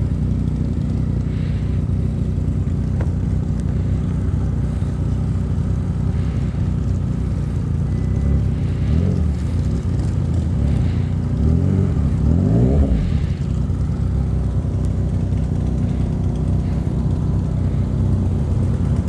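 Motorcycle riding sound: the Yamaha Tracer 900 GT's engine running under a steady low rumble, with the engine pitch rising and falling about nine seconds in and again around twelve seconds.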